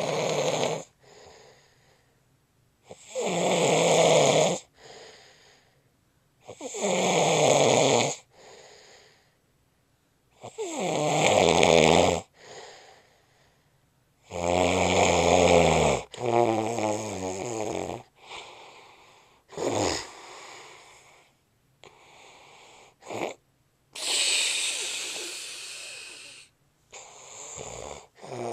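A man snoring loudly in his sleep, with a rasping, buzzing snore about every three and a half seconds, each followed by a fainter short breath. After about seventeen seconds the rhythm breaks up into shorter, uneven snorts and a long airy breath.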